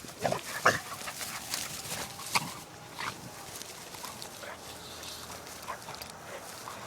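Two puppies play-fighting, giving a string of short, irregular dog noises, the loudest in the first second.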